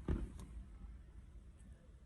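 A short knock right at the start and a lighter click a moment later, then faint background hiss.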